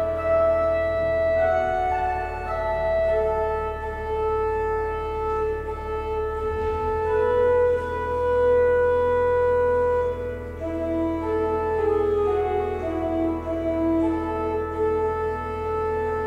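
Church pipe organ playing a slow piece of sustained chords, the notes changing every second or two over a held low pedal note.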